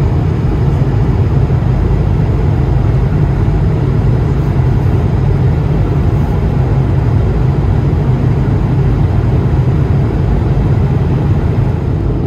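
Steady, deep drone inside the passenger cabin of an Airbus A220-300 in cruise flight: airflow and its Pratt & Whitney PW1500G geared turbofan engines, heaviest in the low end.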